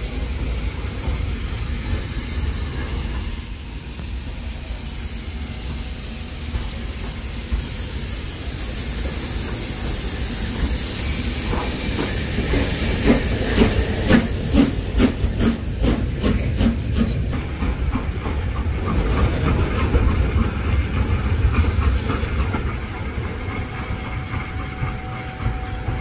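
BR Standard Class 4 4-6-0 steam locomotive No. 75069 hissing steam over a low rumble as it moves slowly past. Around the middle comes a run of evenly spaced beats, about two a second, which then fades as the engine draws away.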